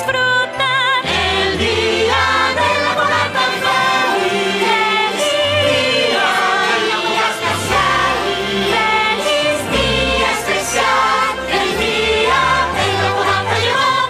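Closing bars of a festive holiday song: a choir of voices singing held notes with vibrato over full orchestral backing.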